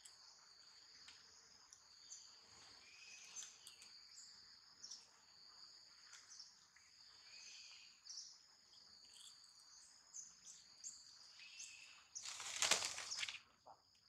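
Faint steady high buzz of an insect chorus, with short bird chirps scattered through it. About twelve seconds in, a loud noisy burst lasting about a second stands out above everything else.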